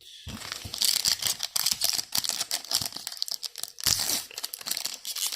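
Crinkling and tearing of a foil Yu-Gi-Oh booster pack wrapper as it is handled and torn open, a dense, crackly rustle that starts suddenly.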